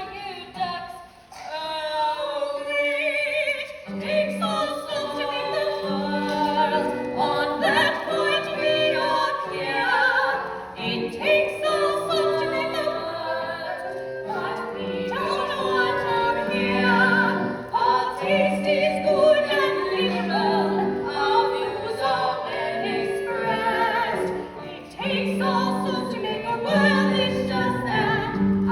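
Musical-theatre song sung over instrumental accompaniment, with a steady bass beat coming in about four seconds in.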